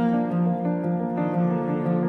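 Background instrumental music of slow, held notes.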